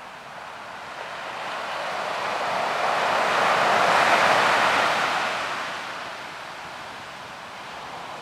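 Ocean surf: a wave swells and washes in, building to a peak about four seconds in and then receding.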